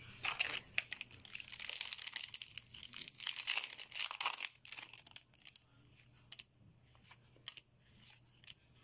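A foil Yu-Gi-Oh booster pack crinkling as it is torn open, for about four and a half seconds. After that come sparse light clicks of the trading cards being handled.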